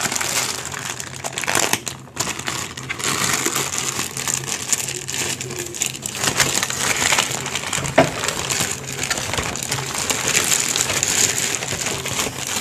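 Clear plastic bag and brown kraft packing paper crinkling and crackling as they are handled and pulled open, with one sharp click about eight seconds in.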